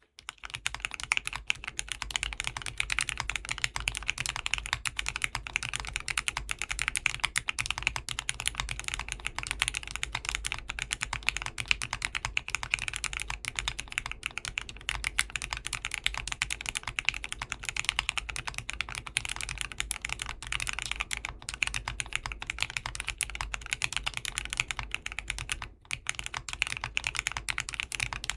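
Continuous fast typing on a 40% custom mechanical keyboard with linear Gateron Oil King switches in an aluminium plate with a PE foam sheet, with MW Fuyu keycaps: a dense run of key presses and bottom-outs, with a brief pause about 26 seconds in.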